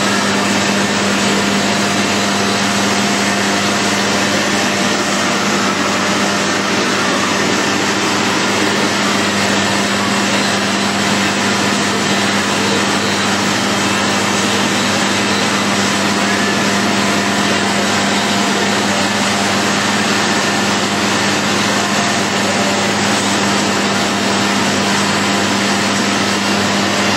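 Blanket slitting and cross-cutting machine running steadily: a constant loud mechanical din with a steady low hum underneath.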